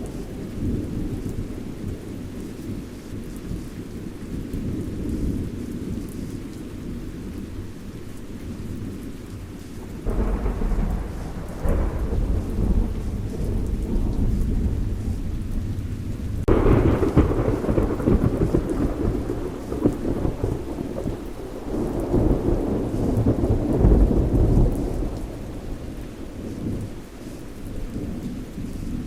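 Thunderstorm: rain falling steadily under low rolling thunder. The thunder swells suddenly about ten seconds in and more strongly about six seconds later, rumbling on for several seconds before dying away near the end.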